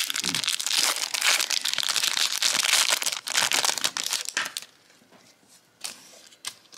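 Foil wrapper of a 1998 Bowman football card pack crinkling and tearing as it is ripped open, stopping suddenly about four and a half seconds in. A couple of faint clicks follow as the cards are handled.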